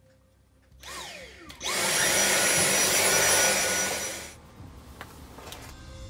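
Small electric vacuum cleaner run for about three seconds: a loud, even rush of air with a steady high whine, which starts suddenly and then dies away. A short falling tone comes just before it.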